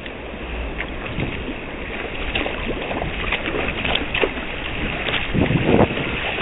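Water sloshing and splashing against a kayak's hull, with wind buffeting the microphone; a louder splash comes near the end.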